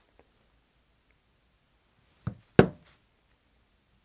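A maul striking a leather stamping tool, a basket weave stamp, into tooling leather: one light tap, then a hard blow about a third of a second later, a little over two seconds in.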